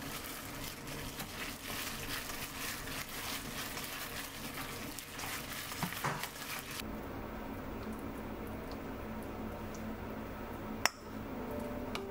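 A hand in a disposable plastic glove squishes and kneads a ground-meat mixture in a stainless steel bowl, with the glove crinkling, as the meat is worked until sticky. The squishing stops about seven seconds in, leaving a quieter background, and one sharp click follows near the end.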